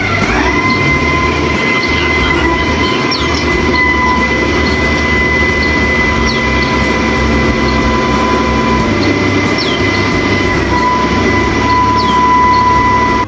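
A mobile crane's engine running, with a steady high-pitched whine held over a low rumble; the whine grows louder about three-quarters of the way through.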